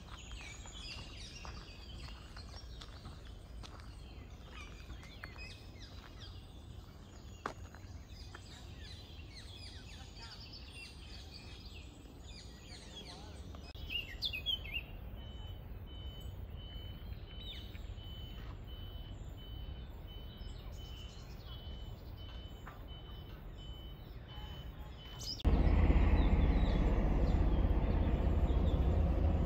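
Park ambience with small songbirds chirping and singing throughout. A thin steady high tone runs through the middle stretch. About 25 seconds in, a much louder steady rushing noise cuts in suddenly and holds to the end.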